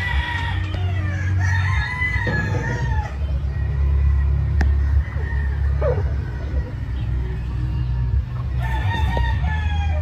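Gamefowl rooster crowing twice: one long crow falling away at its end, then another beginning near the end. Background music with a deep bass line runs underneath.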